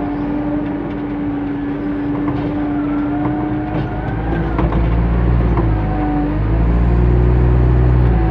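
JCB 3CX backhoe loader's diesel engine running, with a hydraulic whine over it as the front loader bucket is lowered. The engine grows louder over the last couple of seconds.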